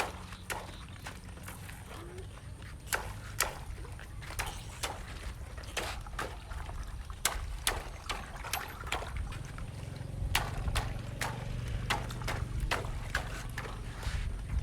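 Water balloons and water being handled: irregular sharp taps and splashes with water dribbling, over a steady low rumble.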